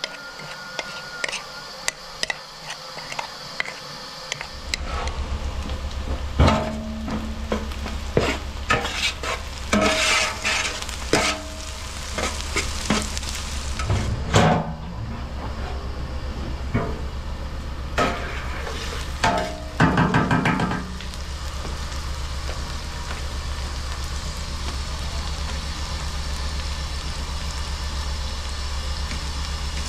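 Chopped onions and chunks of fat sizzling in oil in a large aluminium pot, with a metal utensil stirring and scraping against the pot in several bursts of clatter. A low steady hum sets in about five seconds in and runs under the sizzling.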